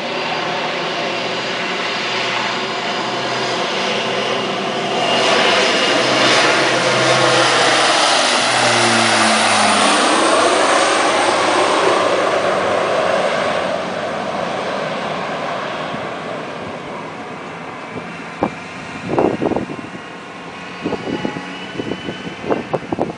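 Beechcraft 1900D twin turboprop on its takeoff run, its Pratt & Whitney PT6A engines at full power. The propeller drone grows louder as the aircraft rolls toward and past, drops in pitch as it goes by, then fades as it climbs away. A few short thumps near the end.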